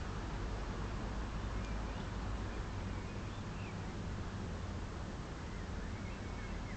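Steady outdoor city ambience: a constant low rumble under an even hiss, with a few faint, short, high chirps of birds scattered through it.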